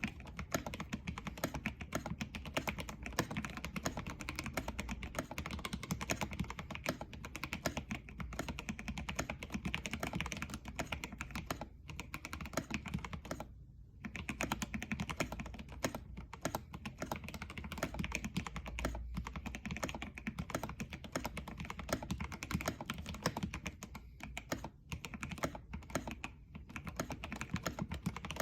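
Fast continuous typing on an NJ80 mechanical keyboard with stock Gateron Yellow Pro linear switches on a brass plate and XDA profile keycaps, dense clacking keystrokes with a few brief pauses.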